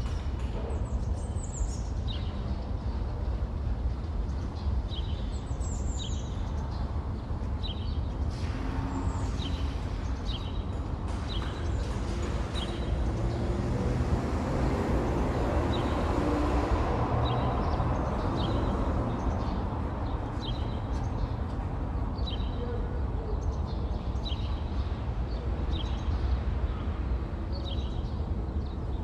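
Outdoor ambience: a steady low rumble of distant traffic with small birds chirping in short repeated calls, and a broad swell of noise, like a passing vehicle, in the middle.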